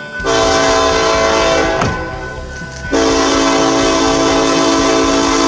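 BNSF diesel locomotive's multi-chime air horn sounding for a grade crossing as the train approaches: a short blast, a pause of about a second, then a long blast.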